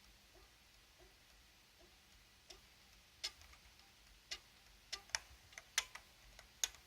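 Futaba clicky keyswitches on a Codegen CG-101F keyboard, with keys pressed one at a time: a few faint, sharp clicks at uneven intervals, starting about two and a half seconds in.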